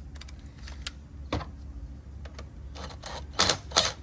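Hand tool turning a 5.5 mm bolt on the intake to loosen it: scattered metal clicks, with two louder, sharper clicks near the end.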